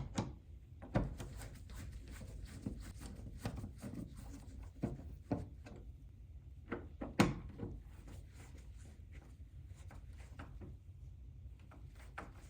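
Doorknob hardware being handled and fastened by hand: irregular small metal clicks, scrapes and knocks of a screwdriver working the mounting screws and the knob parts, with a sharper knock about seven seconds in.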